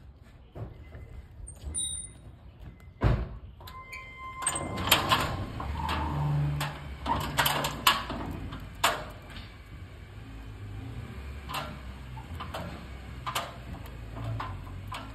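Sheet-metal gate rattling and banging as it is pulled and shaken, with one loud bang about three seconds in, then a chain clanking against the gate as it is handled, and lighter metallic clicks after.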